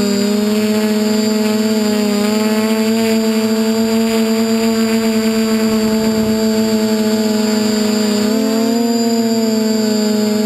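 DJI F450 quadcopter's brushless motors and propellers whirring steadily in flight. The pitch dips slightly at the start and steps up a little about eight seconds in as the throttle changes.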